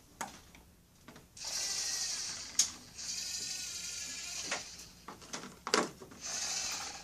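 Small electric motors of a toy robot bulldozer whirring with gear noise in three runs of about one and a half to two seconds each, with a few sharp clicks between the runs.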